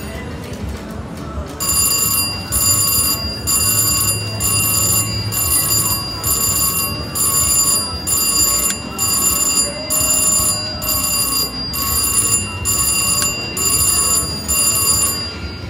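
VGT slot machine's electronic bell ringing in repeated bursts about once a second, the machine's win sound as credits are paid during play, over the low hubbub of a casino floor.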